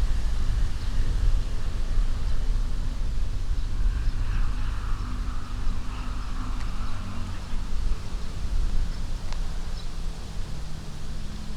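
Wind blowing through an old alder tree, its leaves rustling in swells that rise and fade, over a steady low rumble of wind on the microphone.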